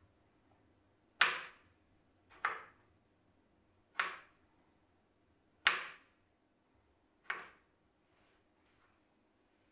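Kitchen knife chopping through aubergine (eggplant) and striking a plastic cutting board: five sharp knocks, about one every one and a half seconds.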